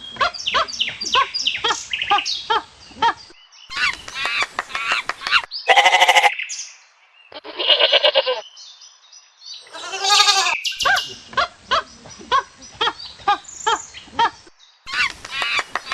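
A quick succession of farm animal calls, cut abruptly from one animal to the next: runs of short repeated calls alternating with a few long, loud cries.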